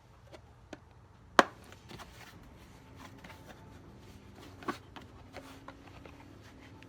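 Handling noise from a small handheld wood moisture meter and its packaging: scattered clicks and taps. The sharpest click comes about a second and a half in and another about five seconds in.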